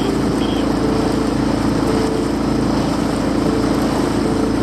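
The Zodiac inflatable boat's outboard motor running steadily, an even drone with no change in speed.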